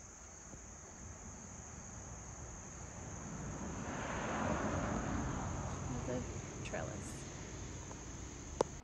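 A chorus of insects keeps up a steady high-pitched trill. In the middle a rushing noise swells and fades, and near the end there is a single sharp click.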